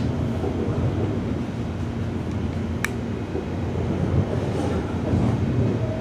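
Commuter train running, heard from inside the carriage: a steady low rumble of the running gear with a faint steady hum over it. A single sharp click comes just under three seconds in.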